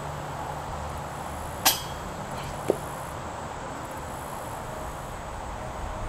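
Steady outdoor ambience in summer woods, with a faint insect hum. One sharp metallic clink comes a little under two seconds in, and a brief chirp follows about a second later.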